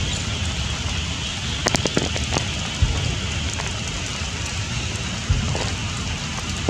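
Steady rain falling through forest foliage, with scattered sharp drips of single drops.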